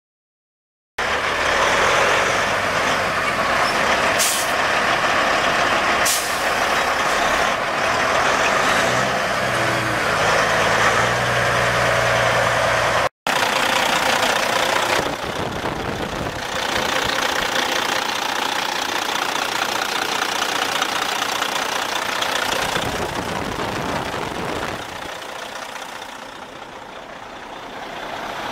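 Caterpillar C15 inline-six diesel of a Freightliner Columbia semi idling steadily, heard up close. It starts about a second in and breaks off for an instant about halfway.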